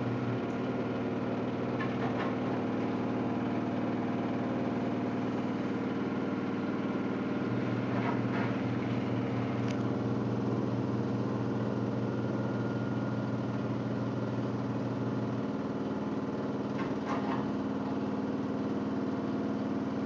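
LG Prime 8.5 kg front-loading washing machine spinning its drum with a steady motor hum. The load of jeans and coloured clothes is badly unbalanced, so the spin holds short of its 1200 rpm target.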